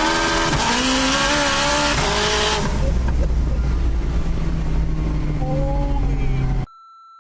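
A turbocharged 1000 hp Acura RSX (DC5) engine, heard from inside the cabin, pulls hard with climbing revs and a loud rushing noise. After about two and a half seconds it eases off to a low steady drone, then revs up briefly. Near the end the engine sound cuts out abruptly, leaving a faint steady beep.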